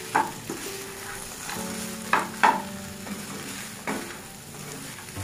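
Diced potatoes frying and sizzling in a non-stick pan while a spatula stirs them. Several scrapes and knocks of the spatula against the pan stand out, the loudest about two and a half seconds in.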